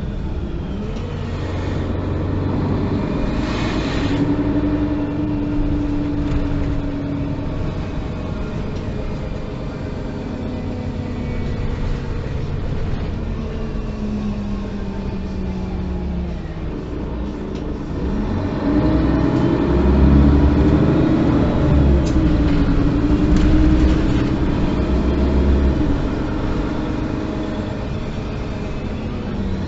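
Mercedes-Benz O530 Citaro city bus's diesel engine heard from inside the moving bus, its note rising and falling as it pulls away and changes speed. A louder, longer pull comes about two-thirds of the way through, then it eases off.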